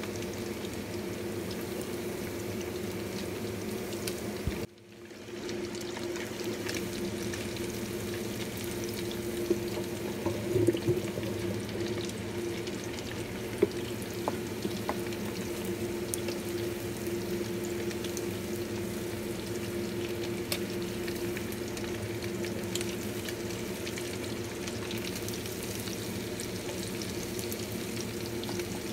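Breaded pork chops deep-frying in hot oil in a steel wok: a steady sizzle and bubble over a steady hum. A few light clicks from wooden chopsticks knocking against the pan and strainer; the sound cuts out briefly about five seconds in.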